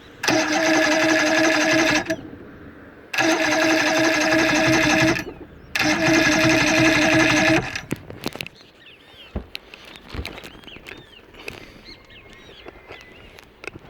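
Johnson V4 115 hp two-stroke outboard's electric starter cranking the engine three times, about two seconds each with short pauses between. The engine never fires: a no-start.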